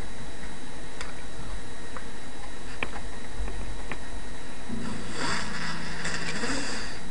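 Steady hiss of a webcam's built-in microphone with a few faint clicks, and a short rustling noise about five seconds in.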